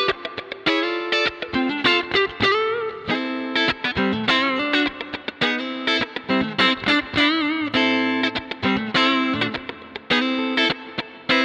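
Stratocaster electric guitar playing a run of single notes, its synchronized tremolo arm making the pitch waver on held notes, most clearly about seven seconds in.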